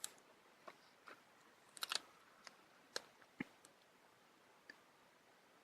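Faint, scattered clicks and taps, about eight in all with a double click near the middle, from fingers handling a reassembled smartphone and its plastic parts.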